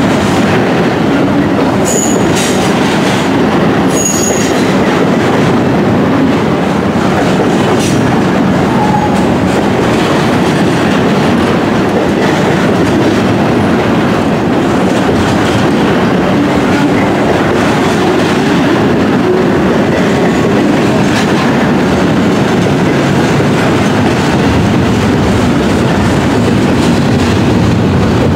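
Double-stack intermodal well cars rolling past close by: a steady, loud rumble and clatter of steel wheels on the rails. Brief high-pitched wheel squeals come about two and four seconds in.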